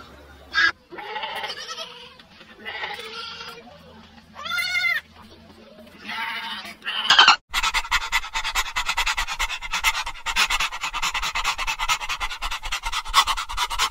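Several separate animal calls, one with a wavering, quavering pitch midway. About seven seconds in they give way to a fast, steady run of many short clicking calls.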